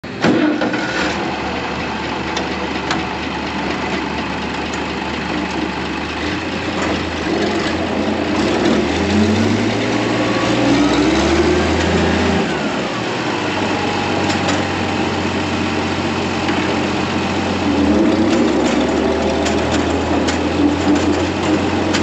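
Farm tractor engine running while the tractor is driven, heard from the driver's seat. The engine note rises about midway, drops suddenly, and rises again near the end as the engine speeds up, with a few sharp clicks or rattles along the way.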